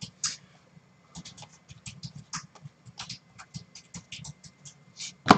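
Panini Prizm football trading cards being flipped through by hand, the cards sliding and flicking against one another in a run of short, irregular clicks and swishes, with one sharper snap near the end.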